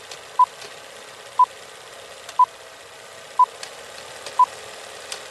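Film countdown leader sound effect: a short beep once a second, five times, over a steady film hiss with a few faint crackle clicks.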